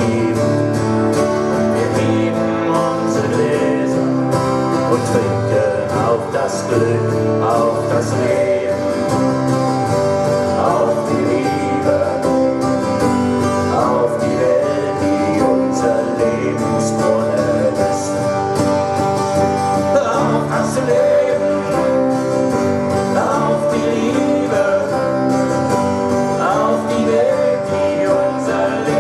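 Live band music with guitars and a singer.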